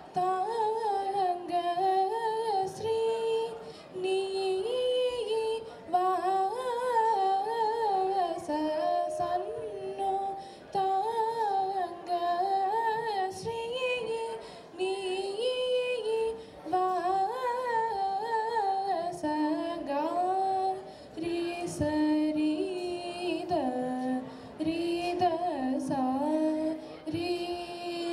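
A young female singer singing a melody solo into a microphone, in phrases a few seconds long with short breath pauses between them.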